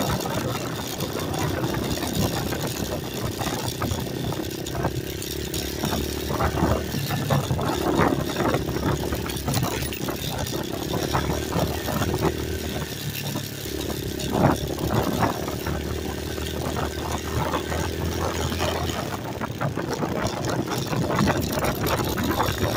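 A 2021 Hawk DLX 250 motorcycle engine running steadily under way on a dirt road, with frequent short knocks and crackles over the drone.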